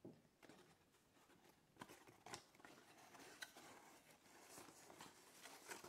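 Faint paper rustling and crinkling from a hand handling a folded-paper origami tessellation, a string of small irregular crackles.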